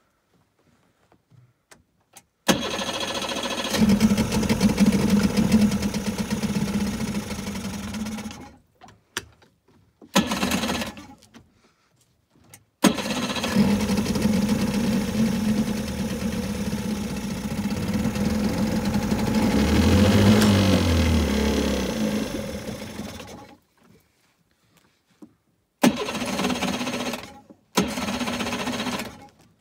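Suzuki 30 hp outboard motor being cold-started. It fires and runs for about six seconds, then dies. After a brief one-second attempt it runs for about ten seconds, rising and falling once in pitch, then stops. Near the end come two more short bursts as it is restarted.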